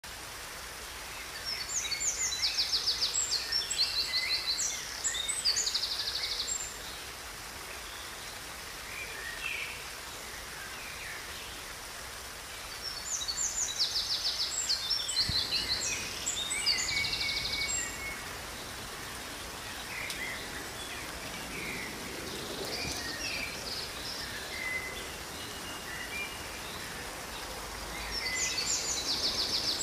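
Songbird singing a long, trilling song phrase, repeated three times about twelve seconds apart, with quieter chirps between the phrases over a steady outdoor hiss.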